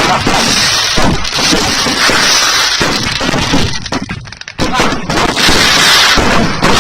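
Fireworks crackling, a dense rapid crackle of many small pops that drops out briefly a little past halfway and then starts again.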